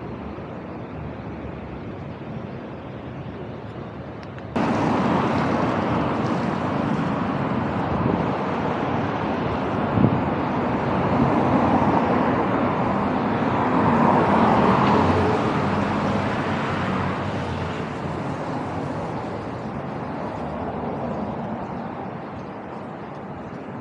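Street traffic noise: a steady hiss of road vehicles that jumps up suddenly about four seconds in. It swells as a vehicle passes close around the middle, then fades back down. One sharp click comes near the middle.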